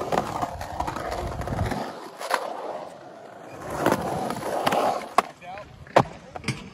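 Skateboard wheels rolling on a concrete bowl, rumbling in two long runs, with several sharp clacks of the board, the loudest about six seconds in.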